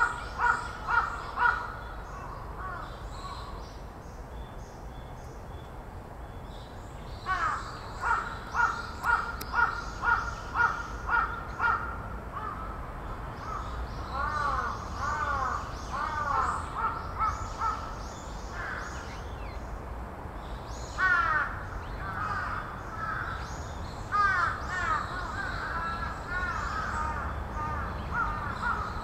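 Large-billed crows cawing in several bursts of quick, repeated caws with short pauses between the bursts.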